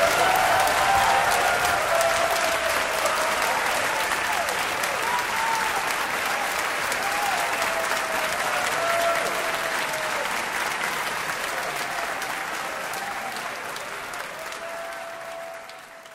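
Audience applauding, with a few voices whooping above the clapping; the applause slowly dies away and fades out near the end.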